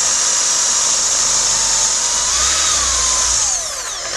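Electric drill running with a steady high whine, its pitch sagging and falling away as the motor slows to a stop near the end, then starting up again right at the end.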